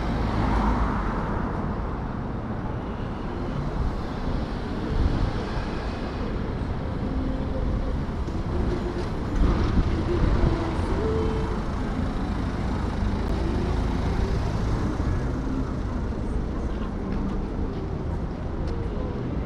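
City street ambience: steady road traffic from passing vehicles, with faint voices of passers-by now and then.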